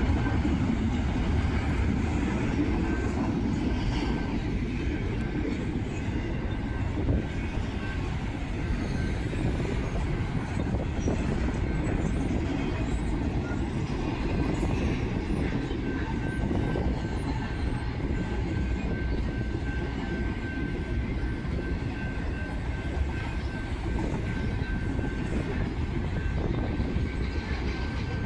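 BNSF intermodal freight train rolling past, a steady rumble of steel wheels on rail with a thin, steady high whine from the wheels, plainer in the second half.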